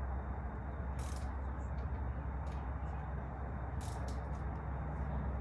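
Wrench clicks on the stem faceplate bolts as the top bolt is eased off slightly, a few separate faint clicks over a steady low hum.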